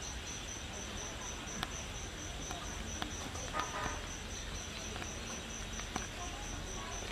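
An insect, likely a cricket, chirping steadily: a high pulsing note about four times a second. A few faint clicks and a brief soft murmur are heard about three and a half seconds in.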